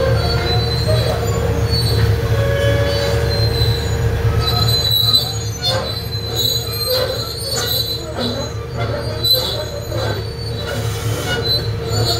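John Deere excavator's diesel engine running steadily while the machine travels on its crawler tracks, with the tracks squealing and clanking from about five seconds in.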